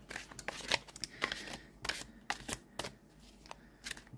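A deck of tarot-sized cards being overhand shuffled by hand: an uneven run of short card slaps and flicks, several a second.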